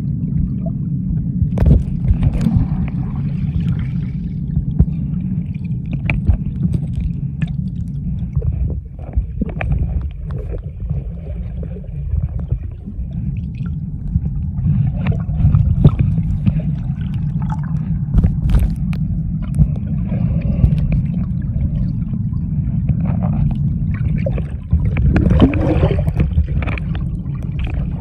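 Muffled underwater sound picked up by a submerged camera: a steady low rumble of moving water with scattered clicks and knocks, and a louder gurgling burst near the end.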